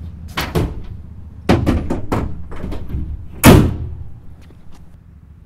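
Several dull thuds as stuffed gear bags are thrown into a pickup truck bed, then the tailgate slammed shut about three and a half seconds in, the loudest sound.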